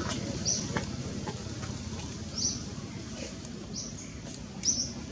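Short high-pitched chirps from a small animal, one every second or two, over a steady low rumble.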